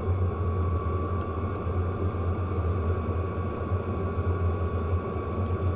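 12-volt WIPPRO diesel heater running steadily, its combustion and blower fan giving a low rumble with a thin steady whine over it. It is running without its exhaust muffler.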